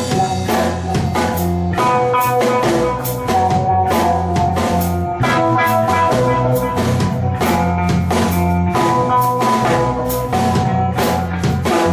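Rock band playing an instrumental passage: electric guitar and bass holding chords that change every second or so over a steady drum-kit beat.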